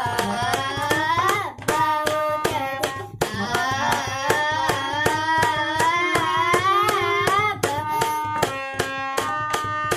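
A boy singing a classical melody in a gliding, wavering voice with short breaks about a second and a half and three seconds in, accompanied by a hand-pumped harmonium holding steady reed notes. A sharp, regular tapping beat of several taps a second runs under the song.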